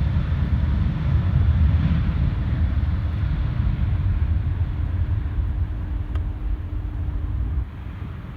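Jet airliner engines rumbling as the aircraft passes, slowly fading away, then dropping off sharply near the end.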